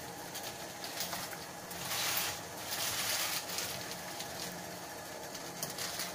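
Water boiling steadily in a stainless steel saucepan, a continuous bubbling hiss, as handfuls of fresh spinach leaves are dropped into it, with a couple of brief swells in loudness.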